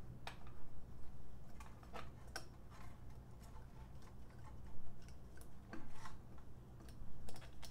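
Irregular small clicks and rattles of metal alligator clips being handled and clipped onto a small loudspeaker's terminals, over a low steady hum.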